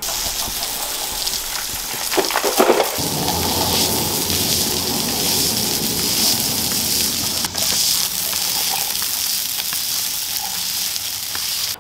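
A stiff push broom scrubbing wet porcelain patio slabs, with steady splashing and hissing water as the slabs are washed down with a garden hose.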